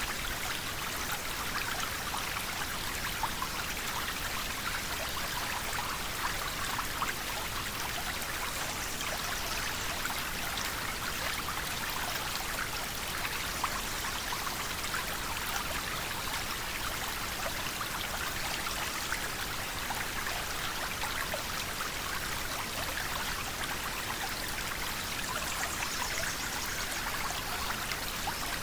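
River water flowing and splashing steadily, a continuous rushing hiss with many small splashes and no pauses.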